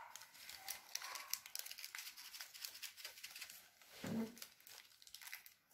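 Faint crackling and clicking of bead-studded slime being pressed and kneaded by hand, many quick ticks close together. A brief low, voice-like sound comes about four seconds in.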